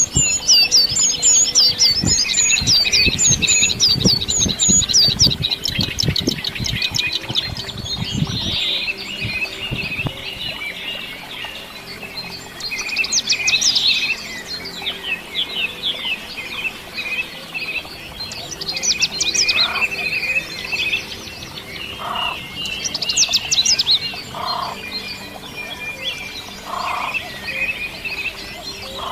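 Several small songbirds singing and chirping over one another: fast runs of high chirps and trills, coming in bouts every few seconds, with short lower call notes repeating in the second half. A low rumble sits under the first several seconds.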